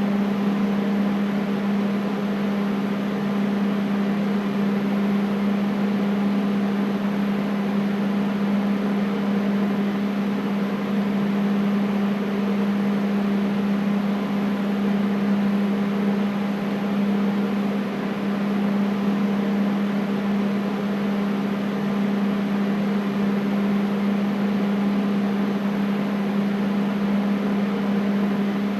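Air conditioner running steadily: an even rush of air with a constant low hum underneath, unchanging throughout.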